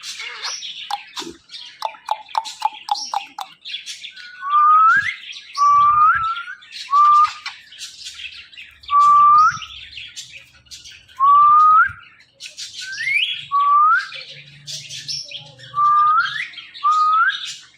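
Ringneck parrot calling: a series of about ten loud, short whistles, each sweeping upward, with softer chattering chirps between them and a quick run of short notes early in the series.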